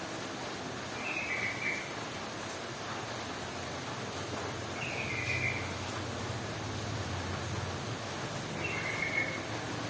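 Yellow-vented bulbul giving three short, bubbling calls about four seconds apart, over steady outdoor background noise.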